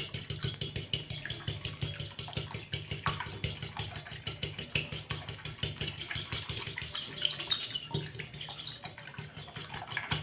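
Metal fork beating raw eggs in a china bowl: a fast, steady clatter of the fork against the bowl.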